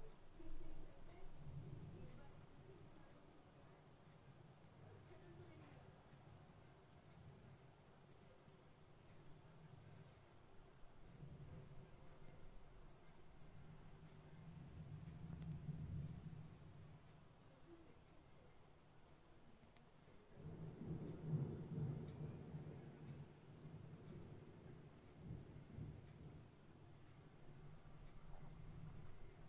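Faint crickets chirping steadily: a high chirp pulsing about four to five times a second over a constant high trill. Soft low rumbles come and go beneath it.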